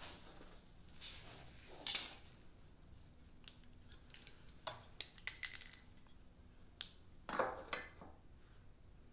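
Scattered light clicks, metal clinks and short scrapes of a steel combination square being handled: picked up, slid and set against a PVC decking strip lying on plywood. The sharpest clicks come about two seconds in and as a pair near the end.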